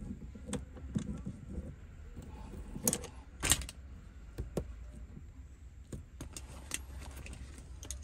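Pliers clicking and clinking against the metal gear-lever shaft and knurled shift-knob insert as the old knob is worked off, with two louder clanks about three seconds in.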